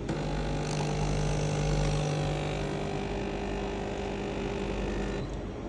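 Home espresso machine's pump running with a steady buzzing hum while it pushes water through, cutting off suddenly about five seconds in.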